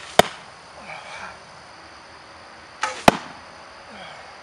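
Two arrows shot from a war bow strike and stick in a baked cowhide shield, two sharp thuds about three seconds apart, each just after a fainter click.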